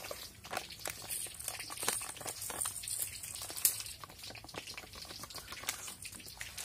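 Dry basmati rice pouring from a plastic bag into a steel bowl: a dense, fine patter of grains landing on the metal and on the rice already in the bowl.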